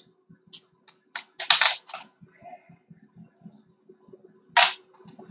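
Faint, scattered tapping and clicking, with short hissing bursts about a second and a half in and again near the end.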